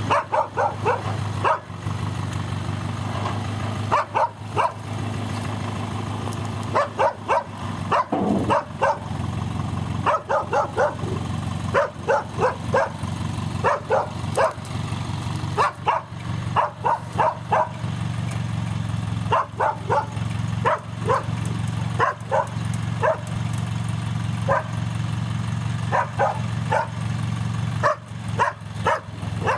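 A dog barking over and over in quick runs of several barks, over the steady low running of a dump truck's engine as the truck tips its bed of logs.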